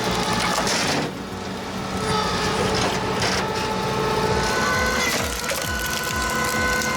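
Tractor engine running, driving a PTO-powered homemade horizontal log splitter, with wood crushing as a log is split. A steady whine joins in about two seconds in.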